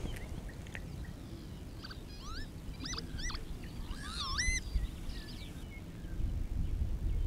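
A songbird singing a short phrase of clear whistled notes that slide up and down, starting about two seconds in and ending about five seconds in, over a low steady outdoor rumble.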